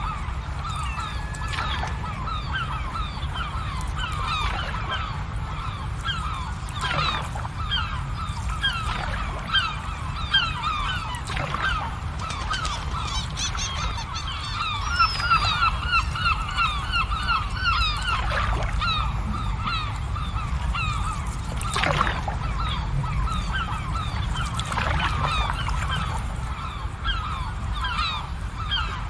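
A flock of birds calling continuously in short, rapid, overlapping calls over a steady low rumble. A few sharp pops come through at intervals.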